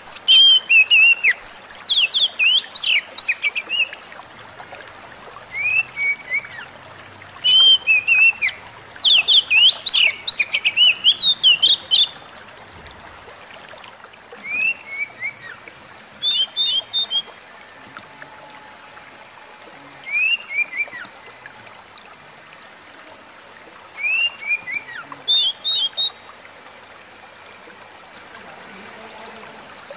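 Oriental magpie-robin (kacer) singing: bouts of quick, sweeping whistled notes, dense for the first dozen seconds, then shorter phrases every few seconds, falling quiet near the end.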